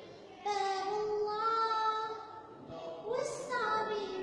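A young girl singing a nasheed solo, holding long sustained notes. After a brief pause at the start she begins a new phrase about half a second in, and her voice climbs to a higher note near the end.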